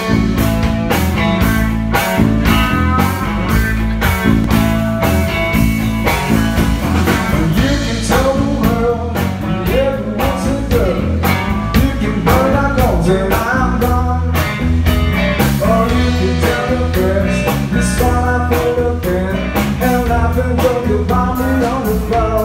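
A band playing a song: a voice singing over guitar, bass and drums with a steady dance beat.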